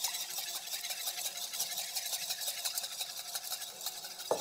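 Wire whisk beating a liaison of egg yolks and cream in a bowl: quick, even strokes of the wires against the bowl, several a second, with one sharper clink near the end.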